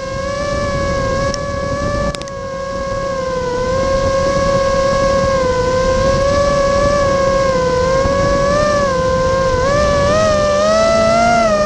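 Vortex 250 Pro FPV quadcopter's motors and propellers whining in flight, the pitch wavering up and down as the throttle changes and rising a little near the end, with two faint clicks about one and a half and two seconds in.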